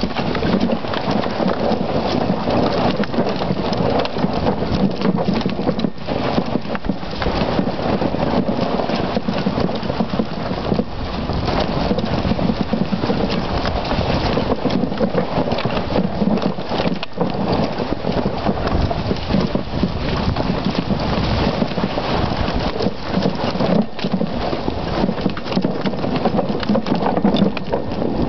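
An ATV rolling over a rough, snowy, rocky trail behind a dog team: a steady noisy rattle and crunch from its tyres and frame.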